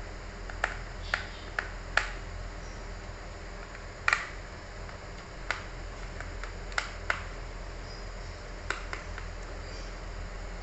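Small screws being driven in with a screwdriver to fasten a laptop drive in its bay: a scattering of sharp, irregular clicks and taps of metal and plastic, about nine in all, over a steady low hum.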